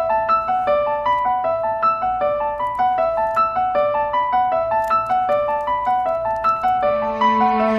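Background music: a piano-like keyboard melody of quick, evenly spaced notes, joined by held chords about seven seconds in.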